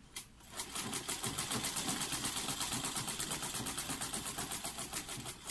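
Black domestic sewing machine with gold decals stitching along the edge of a folded fabric strap. It runs a steady, rapid clatter of about nine stitches a second, starting about half a second in and stopping just before the end.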